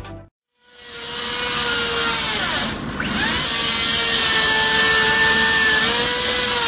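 Electric chainsaw spinning up and cutting through a fallen tree trunk, a steady high-pitched whine with a brief dip about three seconds in.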